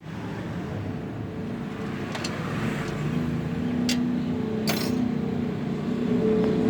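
A steady mechanical hum at a few fixed pitches, slowly growing louder, with three brief sharp clicks around the middle.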